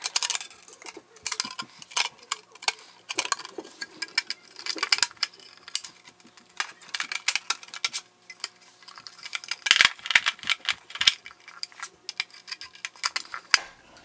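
Irregular clicks, taps and rattles of a hard drive being handled against the sheet-metal base plate of a network video recorder, its screw heads being fitted into the plate's keyhole slots. The clicks come on and off, with a louder cluster about ten seconds in.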